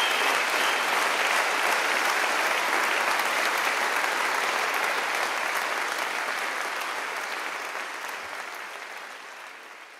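Audience applauding steadily at the end of a song, dying away over the last few seconds.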